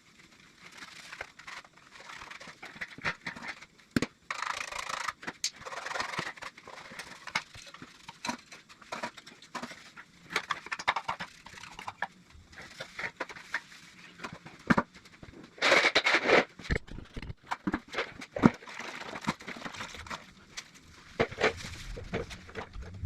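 Hand-washing of an air compressor with soapy water: irregular scrubbing and scraping, with scattered clicks and knocks and a longer, louder swish about two-thirds of the way through.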